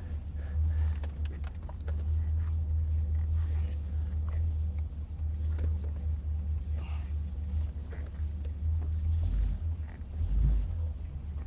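1981 Corvette's 350 V8 running as the car drives, a steady low rumble, swelling briefly about ten seconds in.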